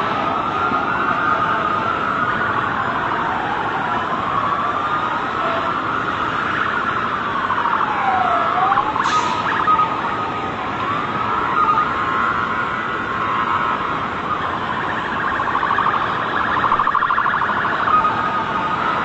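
Several emergency-vehicle sirens wailing at once, their pitches sweeping slowly up and down and overlapping. A steady held siren tone joins about halfway through, over a constant noisy background.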